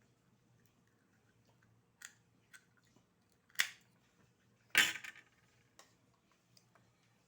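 Oyster shells clicking and cracking as they are handled and pried open: a few sharp clicks, then the loudest cluster of cracks and scrapes about five seconds in.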